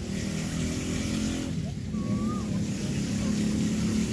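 A steady low engine-like drone. About two seconds in there is a faint, short whistle-like note that dips and rises.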